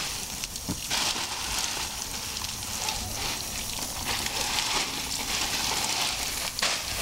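Plastic bag of ice crinkling and rustling as it is packed into a plastic cooler, a steady crackling hiss.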